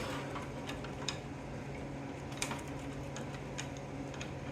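A few faint, irregular metal clicks and ticks from a heavy-duty steel welding F-clamp being handled, over a steady low hum.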